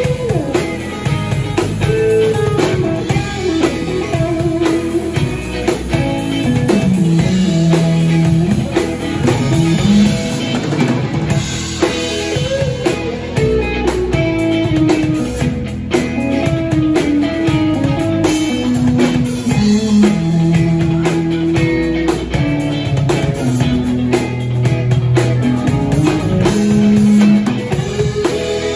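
Live instrumental jam by a small rock band: electric guitars over a drum kit, with a guitar line winding up and down through the low and middle range.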